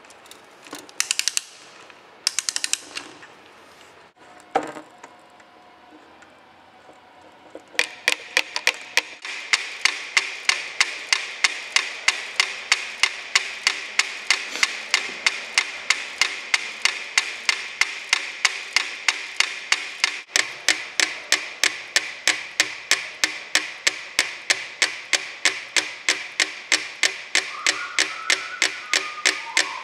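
Three mechanical metronomes ticking together on a board that rests on rolling drink cans, a fast, even run of sharp clicks that starts about eight seconds in. Before that, a few brief knocks and rustles.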